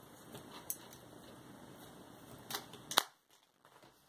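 Light clicks and taps from books and small objects being handled and set down on a tabletop, with a sharper knock about three seconds in.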